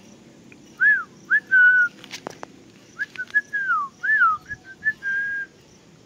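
A run of clear whistled notes at about the same pitch, mostly short rise-and-fall notes with a few held ones, and a sharp click about two seconds in.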